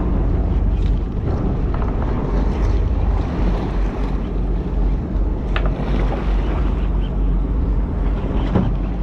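Wind buffeting the microphone over the low, steady hum of the charter boat's engine, with the sea washing around the hull. A few light clicks come through, one about five and a half seconds in and another near the end.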